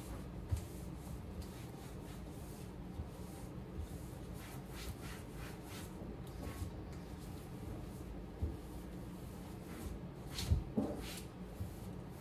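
Cloth wiping and rubbing over kitchen cabinet doors and the range hood in short strokes, with a few light knocks; the loudest knock comes about ten and a half seconds in.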